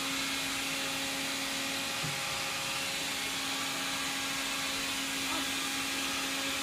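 Stick vacuum cleaner running steadily as it is pushed over a wooden floor: an even suction hiss with a constant motor hum.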